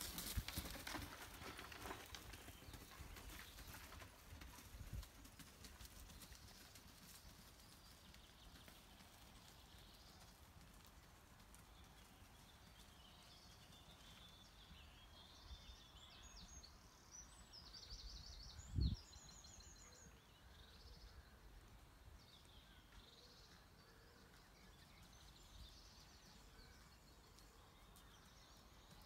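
A horse trotting on a sand arena. Its hoofbeats are clear for the first few seconds and fade as it moves away. After that it is near quiet, with faint bird chirps and one low thump about two-thirds of the way in.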